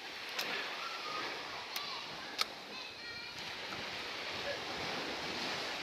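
Surf washing on the beach as a steady rushing noise, with faint voices talking in the background and a few sharp clicks, the loudest about two and a half seconds in.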